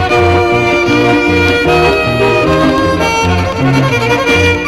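Old-time fiddle reel from a Ukrainian and old-time folk dance band: a fiddle plays a quick melody over a steady, evenly repeating bass accompaniment.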